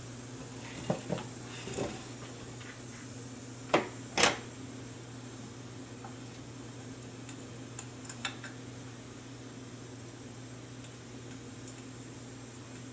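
Small hard parts and tools being handled on a workbench: a few light taps about a second in, two louder sharp clicks around four seconds in, and a few faint ticks near eight seconds, over a steady low hum.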